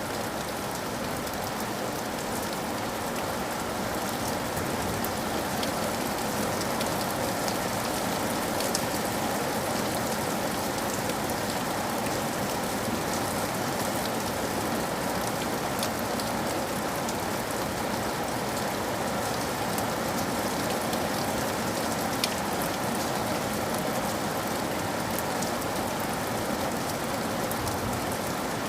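Steady rain falling and pattering on surfaces, with many small individual drop ticks over an even wash of noise.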